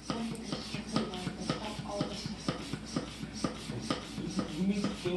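Background music with a quick, steady beat of light percussive strikes and short held notes. It cuts off suddenly just after the end.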